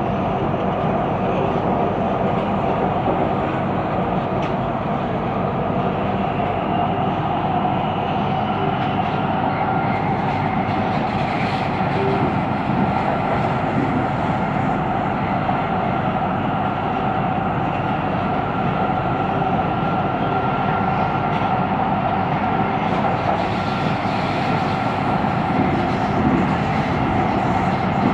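Siemens Inspiro metro train running between stations, heard from inside the car: a steady rolling rumble of wheels on rail with a faint motor whine. The rolling noise is unusual for this train.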